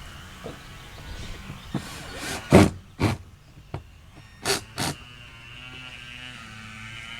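Two pairs of sharp knocks from plastic car door trim being handled and pressed into place, the pairs about two seconds apart.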